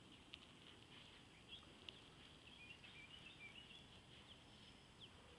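Near silence with faint, high chirping of small birds and a few soft clicks over a low background hiss.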